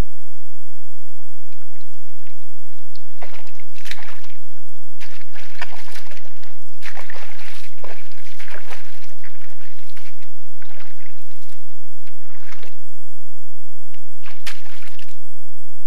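Bull moose wading through a muddy swamp puddle, its legs and hooves sloshing and splashing in the mud and water in irregular bursts.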